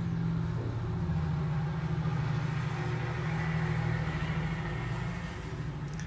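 Steady low mechanical hum, with a faint high whine rising in the middle and fading again.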